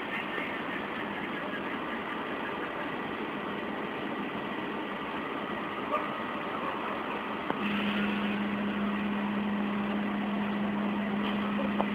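A fire engine's engine running steadily under a continuous noisy hiss, with a steady low hum joining about eight seconds in.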